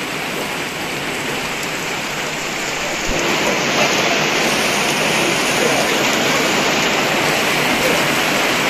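Steady rain falling, an even dense hiss of drops on grass and paving. It gets a little louder about three seconds in.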